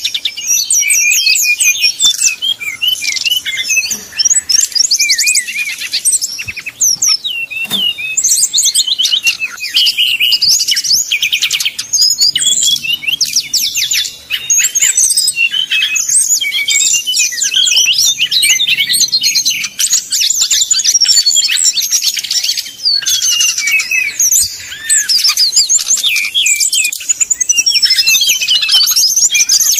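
Brown-chested jungle flycatchers singing over one another in a dense, competitive song duel: a nearly nonstop stream of rapid high chirps, trills and sweeping whistles, with only a few short breaks.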